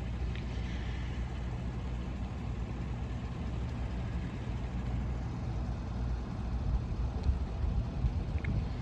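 A motor vehicle's engine idling, a steady low hum.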